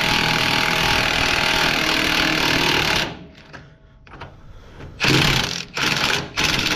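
Milwaukee cordless impact wrench hammering on a truck's front shock absorber mounting nut to break it loose: one continuous run of about three seconds, then, after a short pause, three short bursts.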